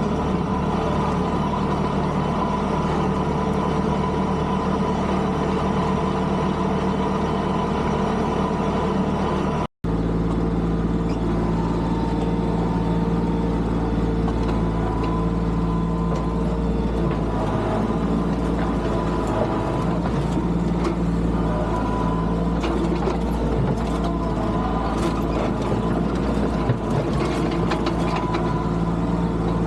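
Tractor engine running steadily. About ten seconds in, an edit cuts to a slightly different, steady engine note, and scattered clanks and rattles come through in the second half.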